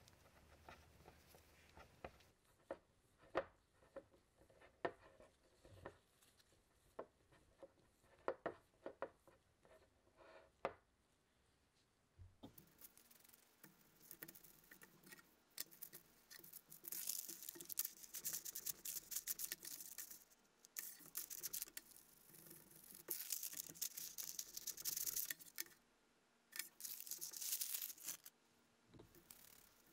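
A spatula scrapes and taps against a glass mixing bowl as stiff cookie dough is mashed together, with scattered sharp clicks. About twelve seconds in, that gives way to parchment paper crinkling and rustling in bursts under gloved hands shaping the dough into a log.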